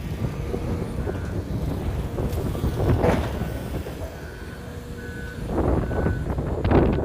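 Heavy construction machinery rumbling steadily while a backup alarm beeps on and off. Louder surges of noise come about three seconds in and again near the end.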